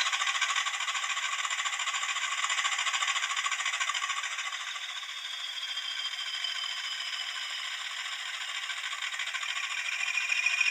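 Hornby TTS sound decoder playing a Class 20 diesel engine through the model locomotive's small, thin-sounding speaker: a fast, even beat with a high whistle over it. The whistle falls in pitch and the engine sound eases off in the middle, then both climb again near the end as the sound builds.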